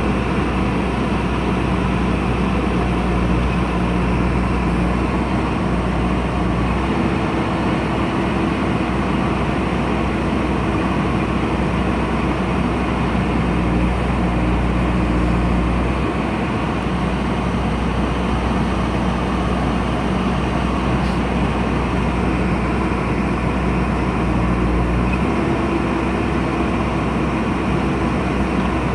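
JCB backhoe loader's diesel engine running steadily, its tone shifting a few times.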